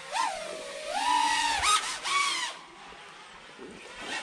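A five-inch FPV freestyle quadcopter flying, its T-Motor Velox 2306.5 2550kv motors and tri-blade props whining and swinging up and down in pitch with throttle changes. There are several rising and falling whines, then the sound drops away after about two and a half seconds.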